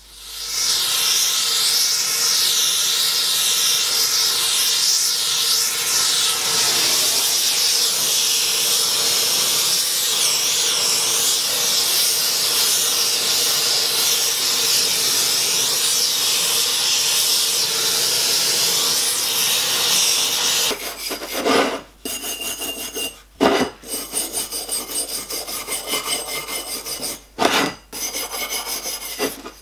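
Gas torch flame hissing steadily and loudly as it heats a copper dome for silver soldering. About two-thirds of the way through this gives way to a hand file rasping on the copper edge in short, uneven strokes.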